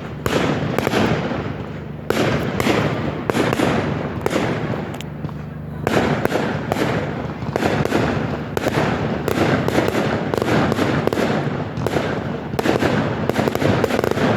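Fireworks going off in rapid, irregular succession: many sharp bangs and pops over continuous crackling, with a lighter stretch about a third of the way in before the barrage thickens again.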